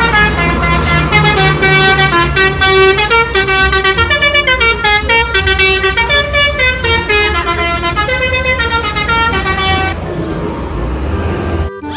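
Bus telolet horn, a set of multi-tone air horns, playing a stepping tune over the low rumble of the bus engine. The tune stops near the end while the engine keeps running.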